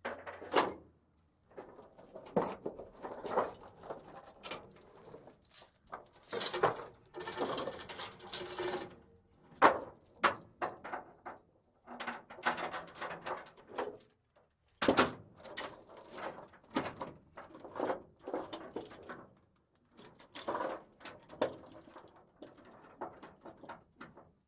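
Ratchet chain binder being worked on a heavy steel chain: irregular metallic clicks and clanks with chain links rattling, in short bursts with brief pauses, two sharper clanks about ten and fifteen seconds in.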